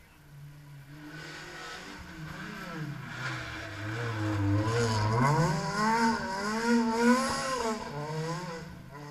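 Rally car engine on a gravel stage: revs drop low as it slows into the hairpin, then climb sharply about halfway through as it accelerates out, the pitch wavering up and down before fading near the end.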